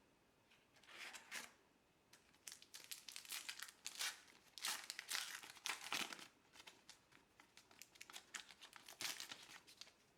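Trading-card pack wrapper crinkling and tearing as it is opened and handled, in irregular rustles starting about a second in.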